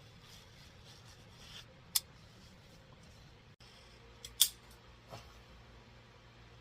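Razor knife slicing excess screen mesh off a screen door frame: a few short, sharp snicks, the loudest about two seconds in and another about four and a half seconds in.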